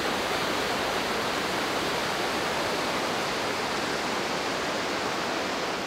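Yellowstone River rushing through whitewater rapids just above the Lower Falls: a steady, even roar of fast water.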